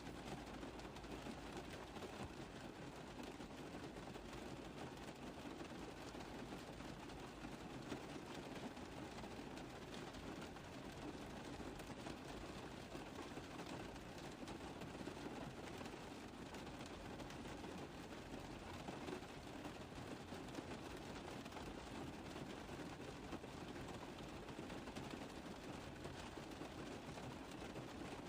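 Steady rain falling on a car roof: a dense, even patter of many small drop impacts with no let-up.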